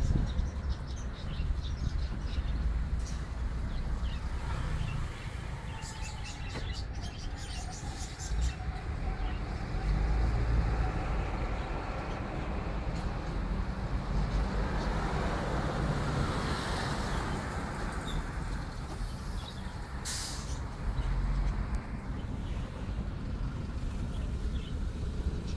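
Street traffic: a steady low rumble of passing vehicles that swells and fades in the middle, with a short hiss about twenty seconds in.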